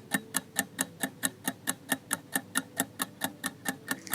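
Fast, even clock ticking, about six or seven ticks a second: a countdown-timer tick sound effect running while the quiz answer is awaited.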